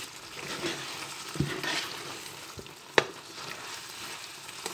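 Bami goreng noodles sizzling in a non-stick wok while a spatula stirs and tosses them, with soft scraping and clicking. There is one sharp knock about three seconds in.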